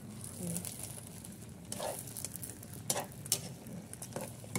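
Spatula stirring leafy greens and shrimp in a wok, with a handful of short scrapes and knocks against the pan over a low, steady simmer.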